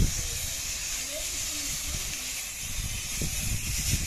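Portable fire extinguisher discharging in a steady hiss, with low thumps and bumps underneath.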